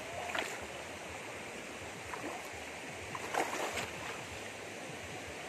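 A shallow stream running, with a few splashes from bare feet wading through the water, the loudest about three and a half seconds in.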